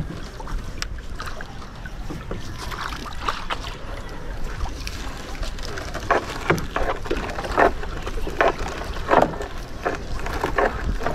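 Nylon gill net being hauled in by hand over the side of a small outrigger boat, giving short rustles and splashes about once a second from about six seconds in, over a steady low rumble of wind and water against the boat.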